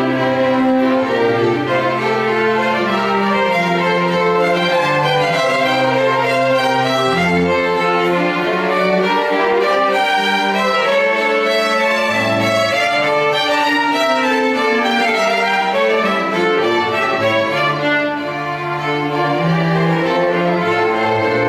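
Small string ensemble of violins and cello playing live, with long held bowed notes over a sustained low cello line.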